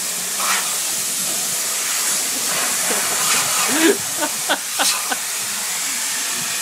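Continuous hiss of compressed air spraying, with a few brief squeaks and clicks about four to five seconds in.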